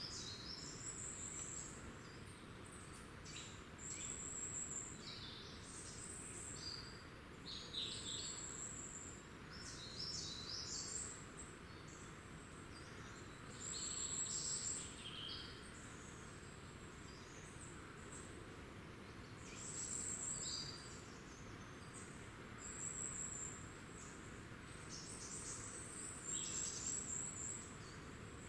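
Small woodland birds calling and singing, many short, high, thin notes every second or two over a faint steady hiss.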